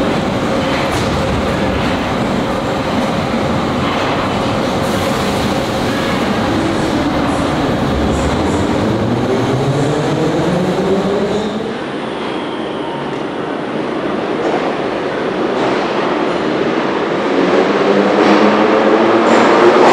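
Moscow Metro Ezh3 track-geometry car running through a station, with wheel and track noise. Its traction motors give a whine that rises in pitch as it accelerates, once about halfway through and again near the end.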